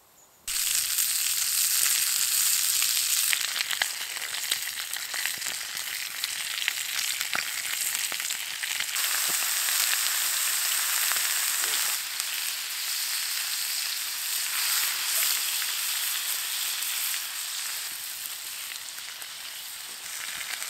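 Lamb chop and hedgehog mushroom pieces frying in a cast iron pan over a campfire: a loud, steady sizzle with scattered pops, starting abruptly about half a second in.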